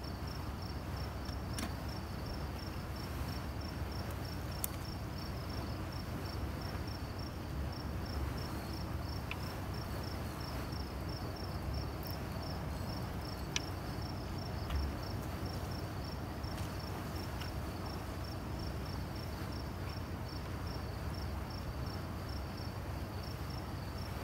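Crickets chirping steadily in a fast, even, high-pitched pulse over a low steady rumble, with a few faint clicks.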